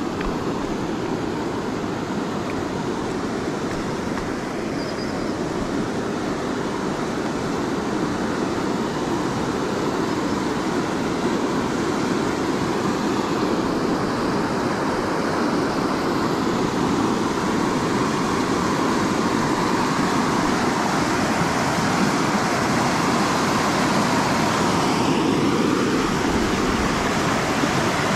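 Water pouring over a low concrete river weir: a steady rushing noise that grows gradually louder.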